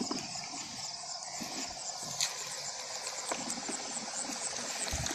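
Night chorus of chirping insects, crickets among them: a steady high pulsed chirping with a lower fast trill underneath, and a few faint knocks of handling. These calls are not frogs.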